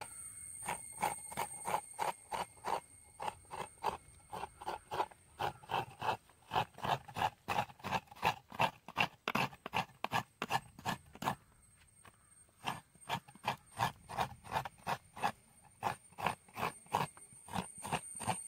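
Rapid, rhythmic strokes of hand food preparation, about three a second, with a short pause about two-thirds of the way through before they start again.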